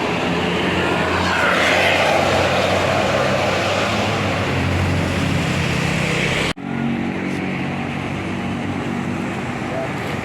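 A bus passing close by on the road, with engine rumble and tyre rush swelling about two seconds in. Some six and a half seconds in, the sound breaks off abruptly and gives way to a steadier engine rumble.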